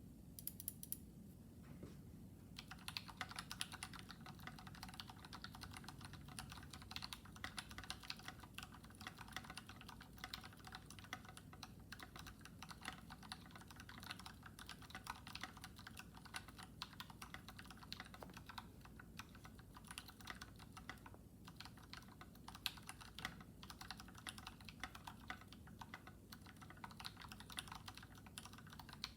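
Continuous fast typing on a Monstargear XO v3 mechanical keyboard. It has a brass plate and lubed, filmed linear switches (Boba housings with Gateron Yellow stems) under PBT keycaps. The irregular run of keystrokes pauses briefly about two seconds in.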